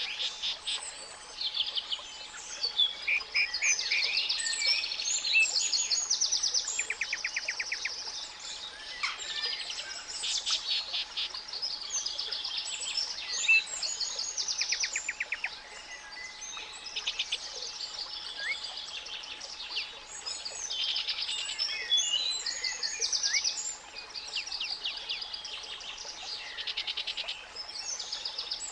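Several songbirds chirping and singing rapid trills over a steady 852 Hz pure tone, with a soft noise bed underneath.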